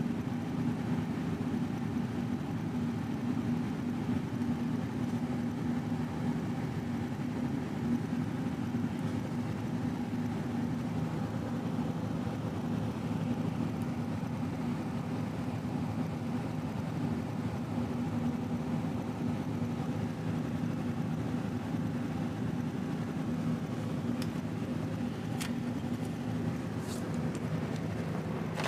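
A steady low machine hum, even throughout, with a few faint ticks near the end.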